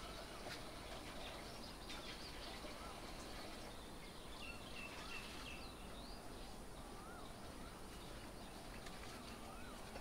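Faint birds calling at a distance: many short rising-and-falling chirps, with a thin higher call around the middle, over a steady low background hum.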